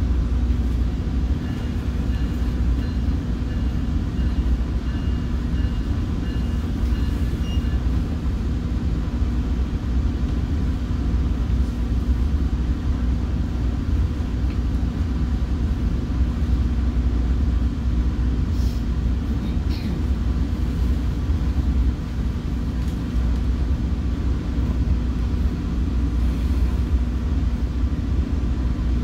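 Commuter train in motion, heard from on board: a steady low rumble of wheels on the track and running gear, with a faint high whine over the first several seconds.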